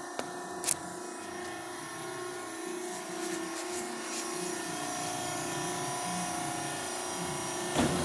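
Steady electric motor and hydraulic pump hum from a vertical baler's power unit, growing a little louder partway through. A sharp click comes under a second in and a knock near the end.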